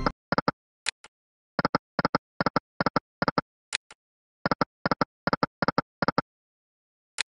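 Video slot game sound effects: runs of short paired clicks as the reels stop one after another, over two spins, each run preceded by a brighter single tick.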